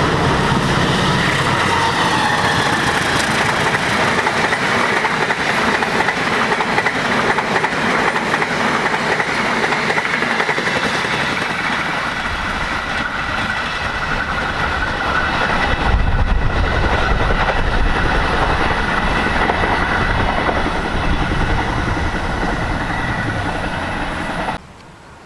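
Passenger train passing close by, its wheels running steadily and loudly over the rails. The sound cuts off abruptly near the end.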